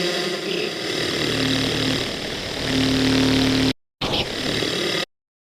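Dense, distorted electronic texture made by resampling a single spoken-word sample in a DAW sampler, with a steady low drone and a noisy upper layer. It cuts out abruptly, restarts for about a second, then stops dead as playback halts.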